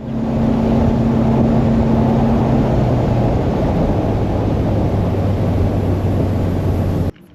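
Bass boat's outboard motor running at speed under heavy wind and water rush; its tone drops lower about three seconds in. The sound starts and cuts off abruptly.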